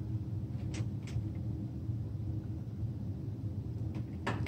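Wire strippers clicking faintly a couple of times as they cut and pull insulation off the red fixture wires, over a steady low hum.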